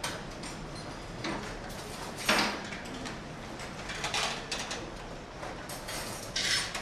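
Steel serving spoons and lids clinking against steel buffet dishes: a handful of separate clinks, the loudest about two seconds in, over steady room noise.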